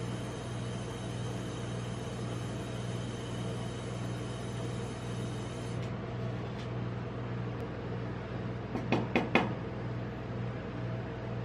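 Steady hum of a rolled-ice-cream cold plate's refrigeration unit running. A brief cluster of sharp clicks and knocks comes about nine seconds in as the utensils are handled.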